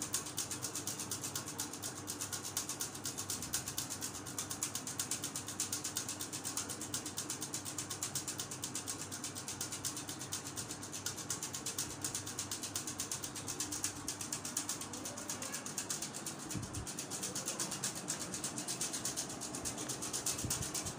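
A fast, even rattling tick, with a faint steady hum underneath.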